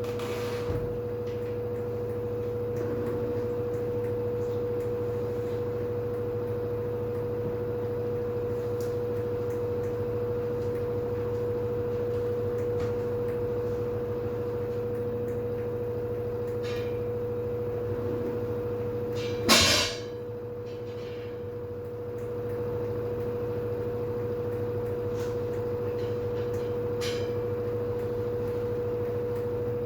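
LG FH4A8TDN2 front-loading washing machine running its spin cycle: a steady motor whine over a low hum, with a few light clicks and one sharp knock about two-thirds through, after which the sound briefly drops a little before settling back.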